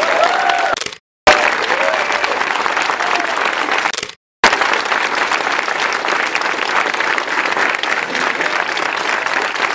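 Crowd applauding, a dense steady clapping. It drops out to silence twice, briefly, about a second in and about four seconds in, where the recording is cut.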